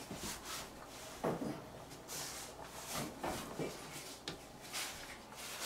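Kitchen handling sounds: a few light knocks and brief rustles as the bread dough is covered and things are moved about on the counter.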